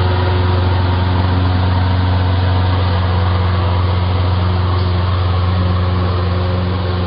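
A motor engine running steadily at a constant speed, a loud even drone with a low hum and a rushing noise, heard through a doorbell camera's microphone.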